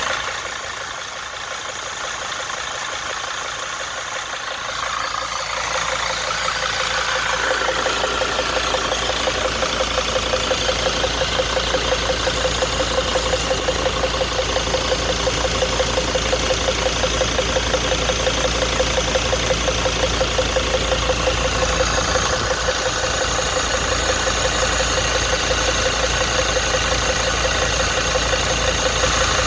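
2002 Sprinter van's engine running just after a long hard start, which the owner puts down to air bubbles in the fuel lines. It is quieter for the first few seconds, then about six seconds in grows louder and settles into a steady idle with an even, rapid pulse.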